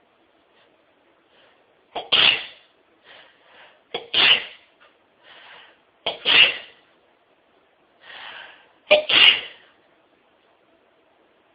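A woman's sneezing fit: four loud sneezes about two seconds apart, the last with a double burst, and quieter breaths and gasps between them.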